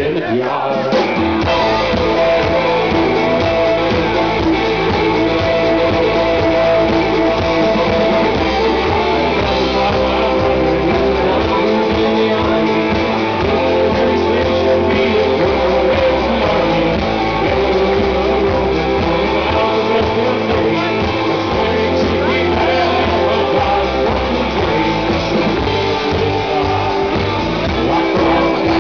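Live rock band playing: fiddle, drum kit and electric guitar together, with held fiddle-like notes over a steady beat.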